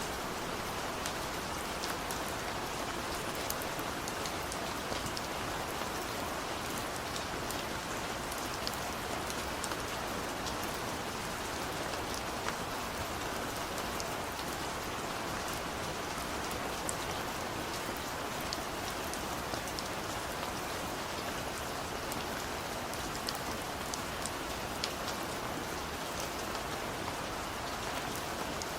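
Steady rain: an even hiss that doesn't change, with scattered sharp drop ticks throughout.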